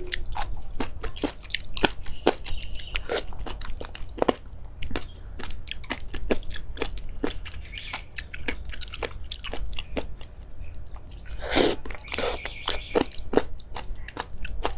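Close-up eating sounds: a person biting and chewing food with irregular crunches and wet mouth clicks, and one louder crunchy bite about three-quarters of the way through.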